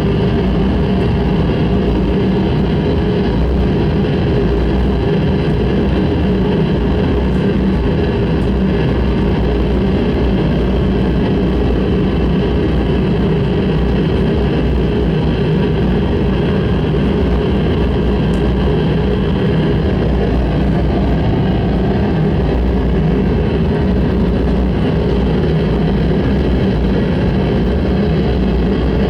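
Harsh noise music: a loud, unchanging wall of dense noise with a heavy low rumble.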